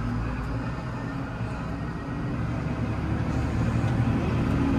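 Tractor engine running steadily, heard from inside the cab as the tractor drives.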